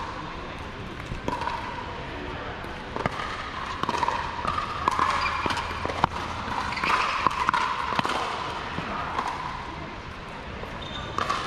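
Pickleball rally: paddles striking the hard plastic ball in a series of sharp pops, most of them in the middle of the stretch, over a murmur of voices.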